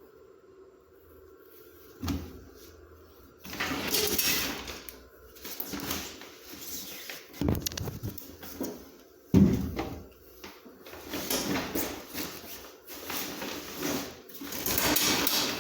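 Handling noises on a front-loading washing machine: plastic parts rattling and scraping, with several dull knocks, as a removable part is taken off for cleaning.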